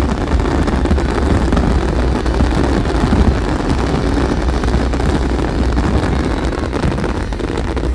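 Fireworks barrage going off so densely that the explosions merge into one steady rumble, with wind buffeting the microphone.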